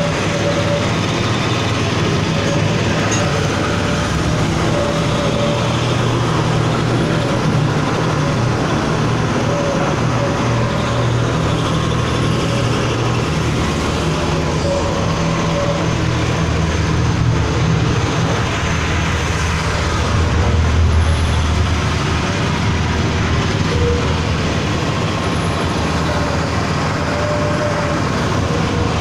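Electric dough mixer running: its motor, worm-reduction gearbox and chain-and-sprocket drive turning the twin mixing paddles, a steady low hum and rumble that swells briefly about twenty seconds in.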